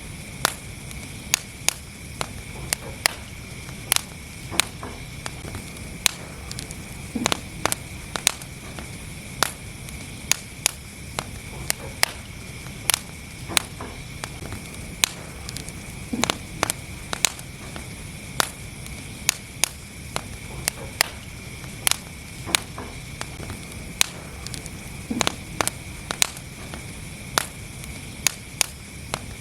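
Wood fire burning in a fireplace: frequent sharp, irregular crackles and pops, several a second at times, over a steady low rumble.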